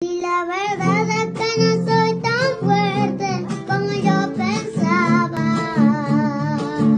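Background music: a high-pitched voice singing a wavering melody with vibrato over plucked acoustic guitar.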